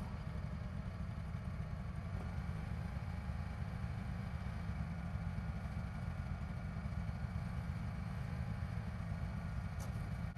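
Engine of a Wood-Mizer LT15 portable band sawmill running steadily with a low, even rumble.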